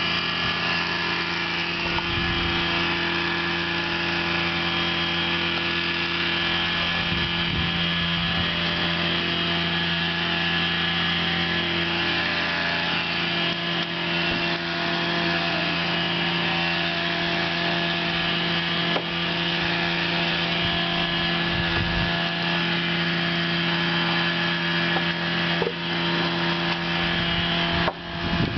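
A steady motor or engine drone at a constant pitch, unbroken throughout.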